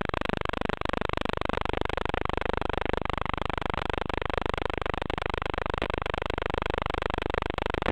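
Steady, rough buzzing drone with pitches that fall over the first two seconds and then hold level, likely the wing's electric motor and propeller heard over a band-limited FPV audio link.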